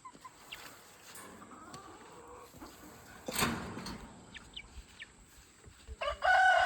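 Chickens in a pen: faint scattered chirps, a short rustling burst about three seconds in, then a rooster starting a long, steady crow near the end.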